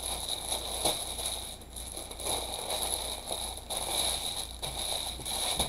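Clear plastic wrapping crinkled and crackled by hands, an irregular run of short crackles and rustles.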